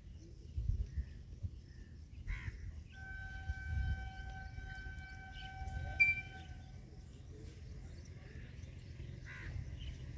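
Distant electric locomotive horn sounding one long blast of about four seconds, starting about three seconds in, as the express approaches. Crows caw twice, once before the horn and once near the end, over a low rumble.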